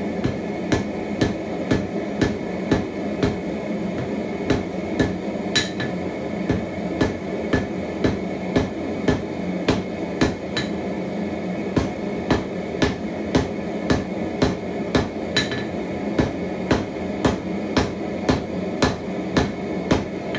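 Hand hammer striking a glowing cable Damascus billet on an anvil, about two blows a second, with a few brighter, ringing strikes among them, over a steady background hum. This is a forge-welding heat, hammering the strands of the steel cable together into a solid bar.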